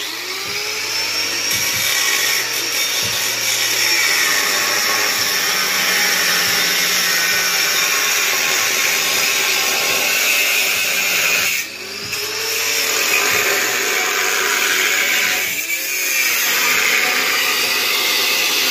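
Angle grinder with a cut-off disc cutting stainless-steel exhaust pipe: a loud, steady high-pitched whine and grinding. It eases off briefly about twelve and sixteen seconds in, and the motor's pitch sweeps back up each time.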